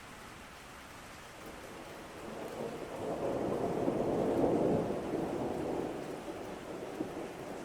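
Steady rain with a rumble of thunder that swells a couple of seconds in, is loudest about halfway through, then slowly fades back under the rain.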